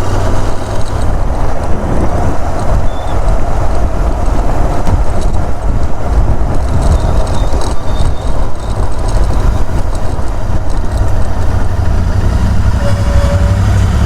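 Motorcycle on the move, its engine buried under a steady, heavy wind rumble on the microphone.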